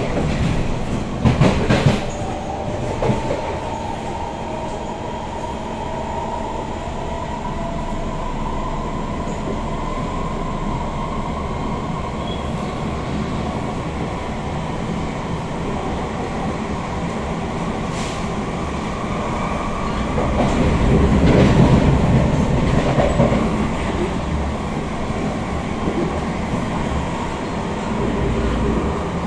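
SMRT C151 metro train running along the track, heard from inside the carriage: a continuous rumble of wheels on rail with a steady high hum. A few sharp knocks come in the first couple of seconds, and the rumble grows louder for a few seconds about two-thirds of the way through.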